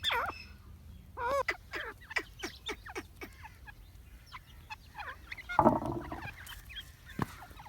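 Gray francolin calling: looping, pitch-bending notes followed by a run of quick short notes. There is a louder noisy burst a little past halfway and a sharp click near the end.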